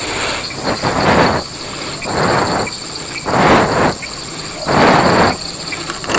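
A person breathing hard right at the microphone: about six rushing breaths, one a little over a second apart.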